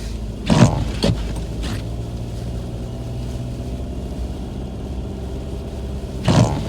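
Steady low drone of a car driving on snowy roads, heard from inside the cabin. A few short, louder sounds break in, two near the start and one near the end.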